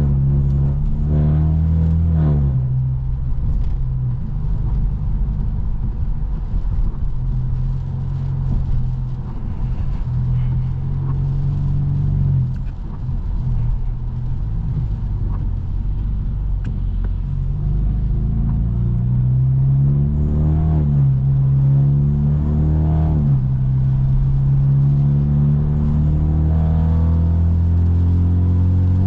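Straight-piped, Stage 2+ tuned BMW F30 328i's turbocharged four-cylinder engine and exhaust while driving. The revs climb over the first two seconds and drop at a gear change, hold steady at a cruise, then climb and drop twice more about 19 and 22 seconds in before settling into a steady drone.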